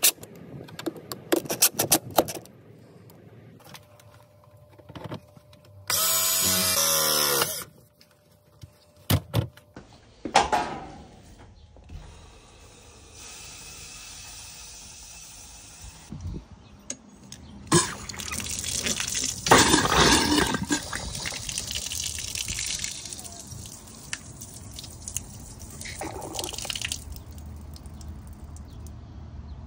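A cordless drill runs briefly, speeding up and slowing down, as it drives screws into a frost-free hose bib's mounting flange. Later a steady hiss of water starts as the supply valve is opened, then water runs louder from the new hose bib, splashing onto the ground, and settles to a lighter flow.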